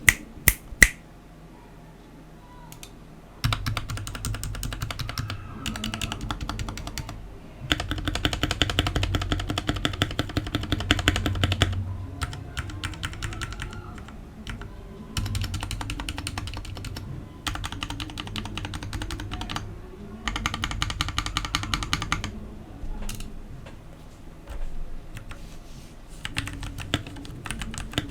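Typing on a Royal Kludge RK68 65% mechanical keyboard fitted with tall SA-profile PBT double-shot keycaps: runs of rapid keystrokes in bursts of a few seconds with short pauses between them. Two sharp single clicks come in the first second, and the typing starts about three and a half seconds in.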